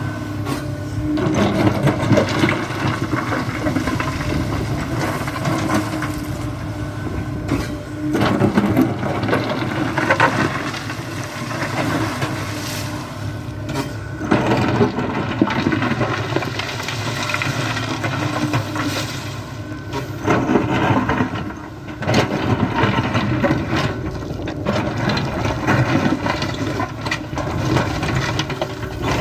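Kobelco SK75 mini excavator working: its diesel engine runs steadily and swells in loudness again and again as the hydraulics move the arm and bucket, with scattered knocks and scrapes of the bucket working the soil fill.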